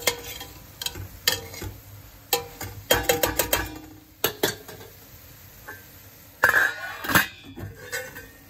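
A spoon stirring chopped green beans and onion in a stainless steel pot, knocking and scraping against the metal with short ringing clinks. The knocks come in irregular clusters, a run of them about three seconds in and the loudest scrapes about six and a half seconds in.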